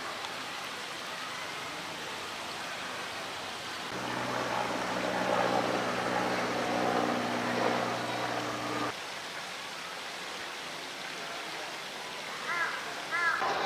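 Water pouring from a pipe into a pool, a steady splashing rush with a steady low hum under it, starting and stopping abruptly about four and nine seconds in over a quieter steady background of running water. A few short chirps near the end.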